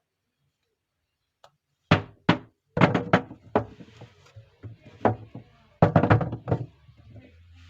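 Soap bars and packaging being handled during unpacking: near silence, then from about two seconds in a run of about a dozen sharp knocks and thumps, some in quick pairs.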